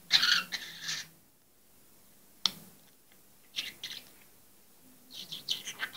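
Budgerigar coughing in short bursts: a cluster at the start, a single sharp click about two and a half seconds in, a few more around four seconds, and a run near the end.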